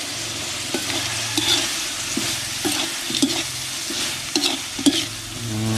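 Meat and herbs sizzling steadily in hot oil in a large steel wok while a metal spatula stirs and scrapes the pan, with short scrapes about once or twice a second.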